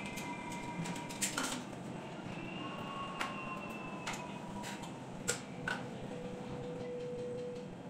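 Scattered sharp clicks and light clinks of hand tools and wire connections being worked at a ceiling light box, over a steady background hiss. A few faint steady tones come and go behind them.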